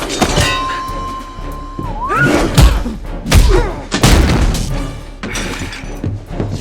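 Fight sound effects over background music: a held high tone that dips and glides upward, then about five heavy punch and body-impact thuds, with shattering, roughly once a second.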